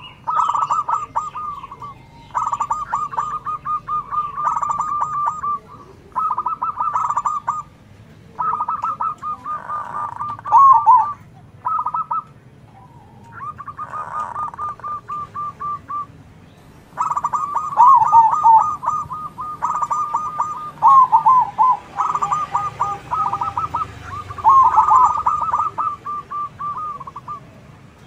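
Zebra doves (perkutut) cooing and answering each other in long runs of quick, rippling coos with short pauses between phrases, the calls overlapping in places.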